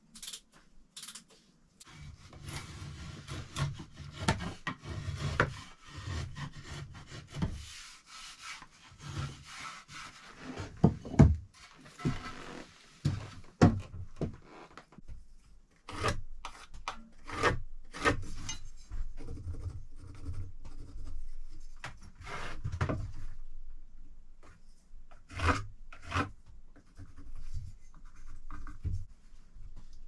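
Woodworking on a wooden table: wood being rubbed and scraped in quick strokes for several seconds, then scattered knocks and short scrapes of boards being handled and set down, the sharpest knocks about a third of the way in.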